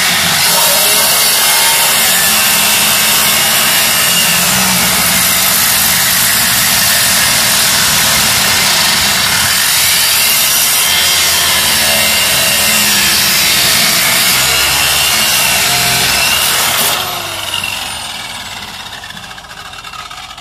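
Angle grinder cutting through the steel body of a Land Rover Discovery at the door pillar: a loud, steady rasping hiss. About 17 seconds in the cut stops and the disc whines down.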